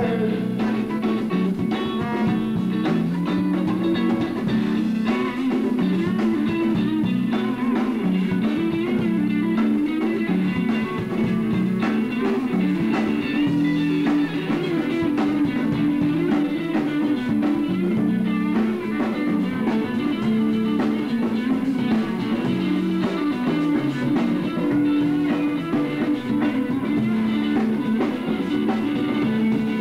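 Live blues band playing with electric guitar to the fore over a drum kit, a steady stretch of music without singing.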